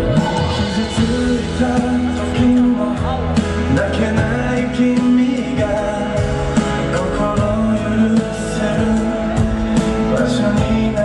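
A man singing a Japanese-language pop ballad live into a microphone over a backing band track, with the steady sound of a concert hall PA.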